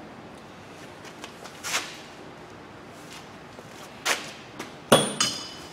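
Metal hand tools being handled: a couple of soft swishes, then a sharp metal clink with brief ringing about five seconds in, the loudest sound.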